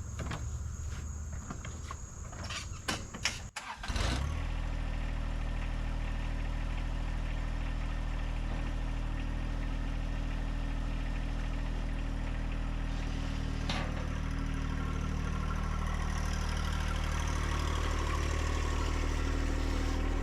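An engine starts about four seconds in and runs steadily, most likely the compact tractor's diesel. Before it starts there are a few clicks over a thin high whine of crickets.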